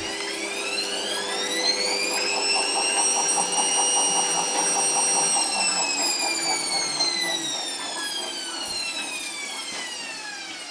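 Indesit WIE127 washing machine's drum motor whining as it speeds up over a couple of seconds, holds steady, then slowly winds down, with a fast ticking while it is at speed. The machine is stuck on a drain fault (F-11): its drain pump is not kicking in.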